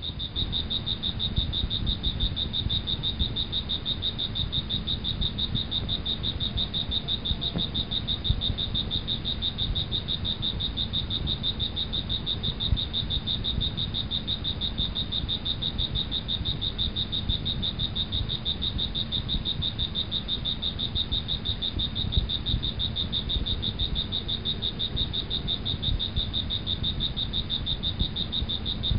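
Steady high-pitched insect trilling, a continuous chorus like crickets, with a low rumble underneath.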